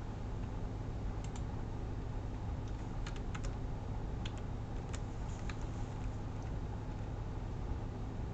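Scattered keystrokes on a computer keyboard as a number is typed in: short, uneven clicks over a steady low hum.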